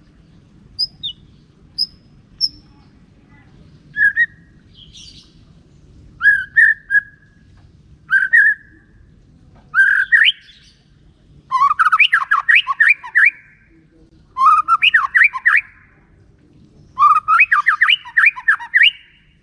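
White-rumped shama singing: short, scattered whistled notes at first, building into phrases and then three bursts of fast, rapidly repeated rising notes, each burst lasting a second or two, starting about 11, 14 and 17 seconds in.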